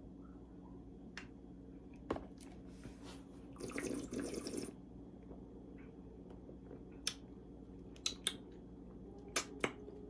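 Sipping carbonated soda: a short slurp of about a second near four seconds in, followed by a few faint clicks.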